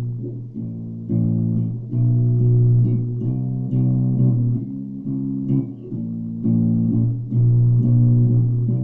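Ibanez four-string electric bass playing a riff of plucked notes. A low root note keeps returning between short phrases of higher notes, changing about every second. It is recorded through a phone's microphone, so the sound is thin and has little top end.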